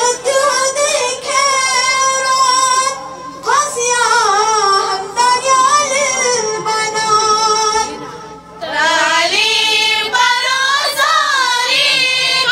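A woman singing solo, unaccompanied, in a slow melody of long held, wavering notes, with short breaks between phrases about three seconds and eight and a half seconds in.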